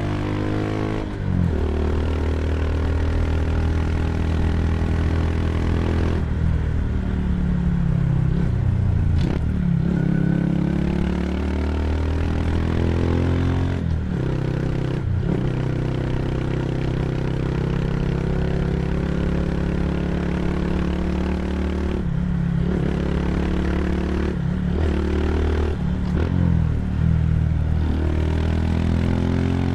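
Honda Super Cub C125's single-cylinder four-stroke engine running through a Yoshimura GP-Magnum Cyclone aftermarket muffler while riding. The exhaust note climbs and falls as the bike accelerates and eases off, with several brief drops in the sound.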